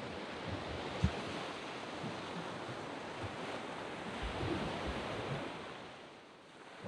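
Waves breaking and washing up a sand beach. The surf swells for several seconds and eases off near the end as the next wave builds, with low bumps of wind on the microphone, the strongest about a second in.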